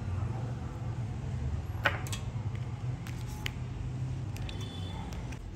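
Hands handling a small metal fishing jig and its clear plastic packet: one sharp click about two seconds in, then a few faint clicks and crinkles, over a steady low hum.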